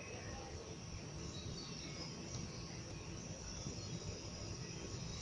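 Insect chorus, a steady high chirring, with faint bird calls mixed in.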